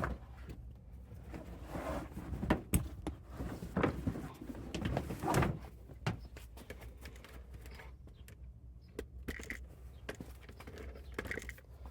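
Irregular knocks, scrapes and rustles of a rubber trim-to-fit cargo mat being handled and shifted about, busiest in the first half and sparser later.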